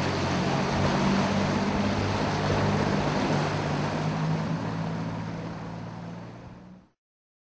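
Yamaha outboard motor running under way on a small aluminium boat, a steady engine hum over the rush of water and wind. It fades and cuts off near the end.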